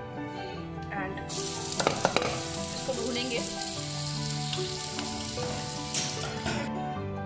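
Chopped bitter gourd peel sizzling hard in hot oil in a steel kadai. The sizzle starts about a second in, as the peel goes in with a few sharp knocks, and stops shortly before the end. Soft background music plays underneath.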